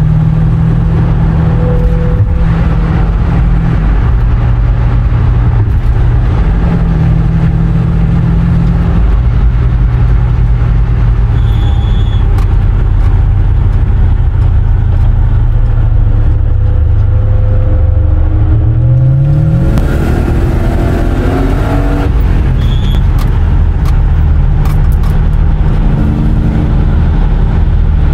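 A car engine and road noise heard from inside a Mercedes-Benz saloon cruising at highway speed, a steady drone. About two-thirds of the way through, the revs climb quickly as the car accelerates.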